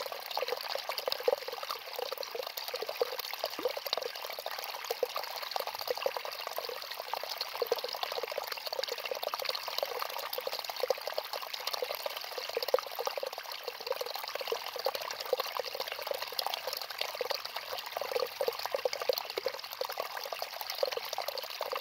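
Steady trickling, water-like noise with a fine crackle, thin and hissy with no low end, running unchanged throughout.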